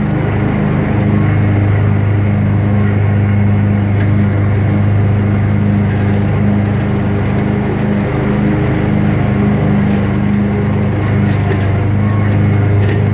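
Gravely ZT XL-60 zero-turn mower's engine running steadily and loudly as the mower drives along, its pitch holding constant throughout.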